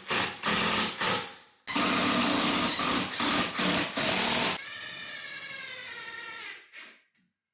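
A power drill driving screws to fasten the cabinets: loud stretches of the motor under load, broken by short pauses as the trigger is released, then a quieter steady whine that winds down about two seconds before the end.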